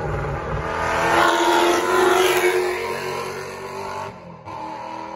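Racing touring car going past at speed, its engine note swelling to its loudest about two seconds in and then fading as it goes away; the sound drops off briefly about four seconds in.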